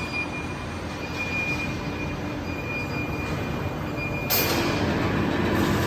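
Steady workshop machinery noise with a thin high whine. A louder hissing noise joins about four seconds in.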